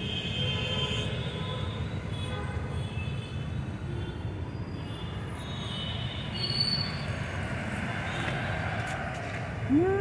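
Steady low rumble of passing traffic, with faint thin high squeals coming and going. A short rising-then-falling call sounds right at the end.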